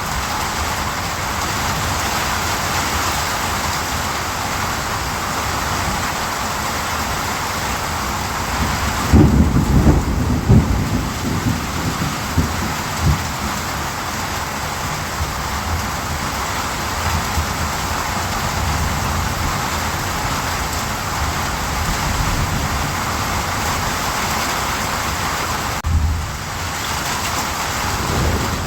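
Steady heavy rain hiss, with a low rumble of thunder rising about nine seconds in and fading over the next few seconds.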